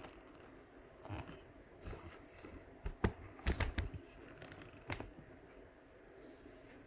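Packaging being handled during an unboxing: a handful of sharp clicks and short rustles, loudest in a quick cluster about three and a half seconds in.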